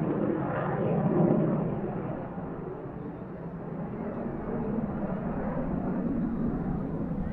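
Jet noise from an F-15's twin turbofan engines as it flies its display. The broad rumble swells about a second in, eases off a little, then holds steady.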